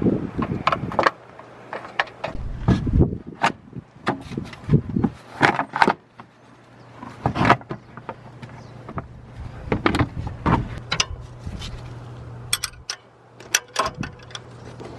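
Irregular metallic clicks, clinks and knocks of hand tools such as sockets, wrenches and a ratchet being handled against metal parts, over a steady low hum.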